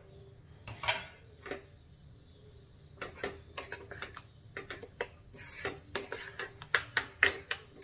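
Metal spoon knocking and scraping against a cooking pan while stirring the oats: one sharp knock about a second in, then a run of quick taps and scrapes from about three seconds on.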